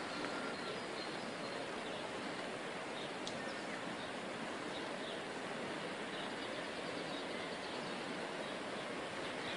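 Steady, even outdoor rushing noise with a few faint high chirps.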